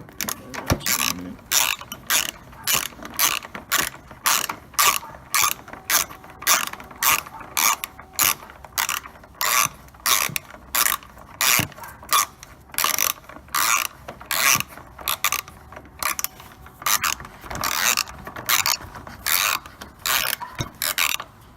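Hand ratchet wrench clicking in short repeated strokes, about two or three a second, as it backs out a 10 mm headlight-mounting bolt.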